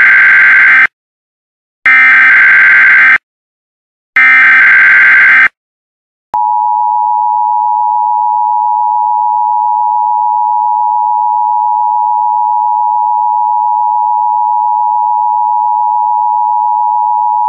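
Emergency Alert System signal for a tornado warning: three short bursts of SAME digital header data about a second apart, then, about six seconds in, the steady two-tone EAS attention signal.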